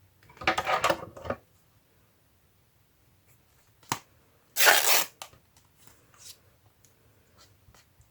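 Paper being handled: two short bursts of paper noise, about half a second in and again near the middle, the second the louder, with a sharp click between them and a few light taps afterwards.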